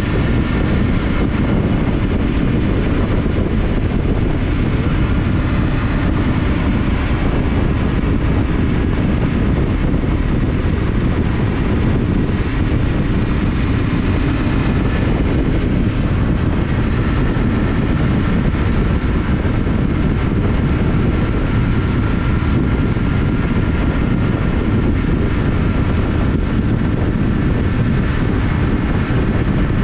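Yamaha Ténéré 700's parallel-twin engine running at a steady cruise, mixed with wind rushing over the microphone.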